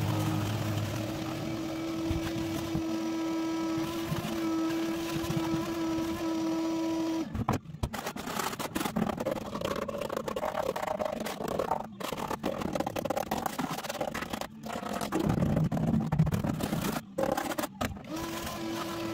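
Shop vacuum running with a steady hum as its hose sucks up loose rust flakes from a van's floor pan. About seven seconds in the vacuum cuts off and gives way to irregular scraping and chipping: a carbide-bladed paint scraper knocking scaly rust off the steel floor pan. The vacuum hum returns near the end.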